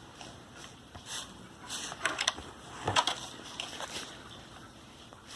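Small plastic toy pieces and packaging being handled: a string of light clicks and rustles, the loudest about three seconds in.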